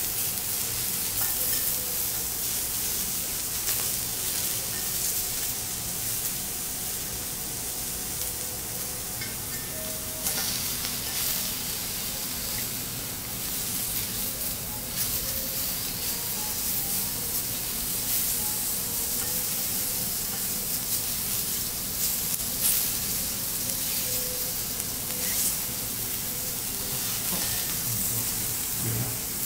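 Lobster pieces sizzling steadily on a hot steel teppanyaki griddle, with a few sharp clicks and scrapes of the chef's knife and spatula against the plate.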